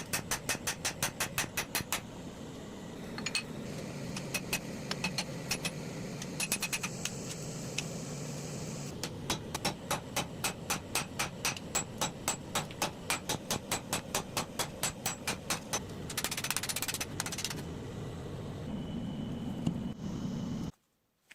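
Rapid metal-on-metal hammer blows forging hot spring steel on an anvil, in runs of about four ringing strikes a second with pauses between. A steady low forge roar runs underneath, and a brief hiss comes about sixteen seconds in.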